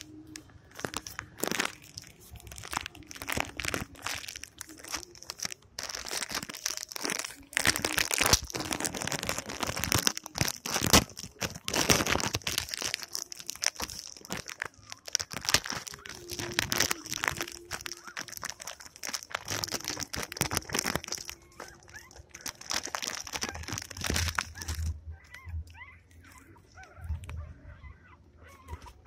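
Plastic wrapper crinkling and rustling in irregular bursts, with scattered crunches, loudest about a third of the way through and dying down over the last few seconds.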